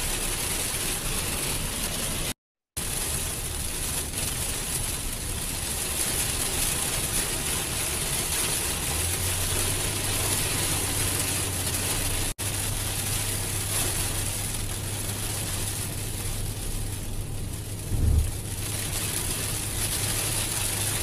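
Heavy rain and road noise heard from inside a moving car, with its engine running, as a steady wash of noise. A steady low hum joins about halfway through, and there is a short low thump near the end.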